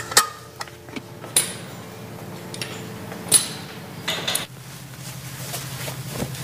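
A metal spoon and steel dishes clinking: a scattering of sharp, separate clinks and taps, one of them ringing briefly a little past the middle, over a low steady hum.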